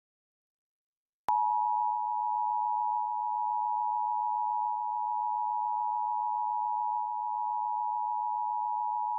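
Emergency Alert System attention signal: the two-tone 853 and 960 hertz pair sounding together, held steady for about eight seconds. It starts about a second in and cuts off sharply near the end. It announces that an alert message follows, here a statewide Required Monthly Test.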